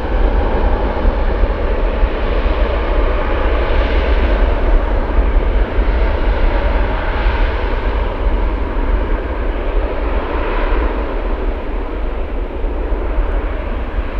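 Airbus A350-1000's two Rolls-Royce Trent XWB-97 turbofans at takeoff thrust during the takeoff roll: loud, steady jet noise with a heavy low rumble.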